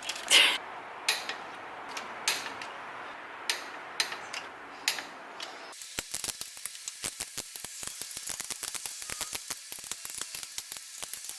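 Ratchet wrench clicking as bolts are tightened. A few scattered clicks come first, then about six seconds in a fast, steady run of ratchet clicks.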